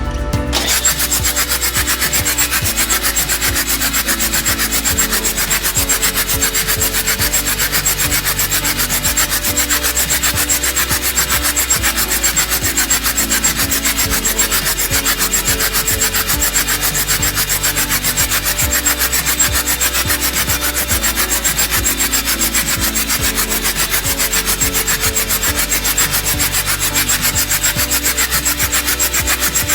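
Isuzu C240 four-cylinder diesel engine running with a fast, even clatter, on freshly serviced injectors.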